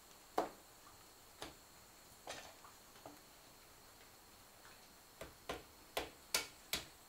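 Sharp, irregular clicks and snaps of wood: a few spaced ones, then a quicker run of five near the end, over a faint, steady high-pitched tone.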